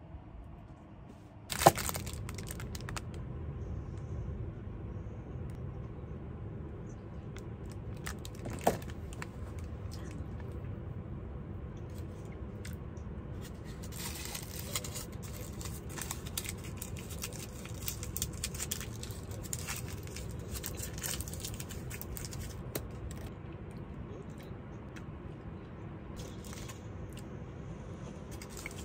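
Gold foil wrapper of a Ferrero Rocher chocolate crinkling and tearing as it is unwrapped by hand, in bursts that are busiest from about halfway through, over a steady low hum. A sharp knock sounds about a second and a half in.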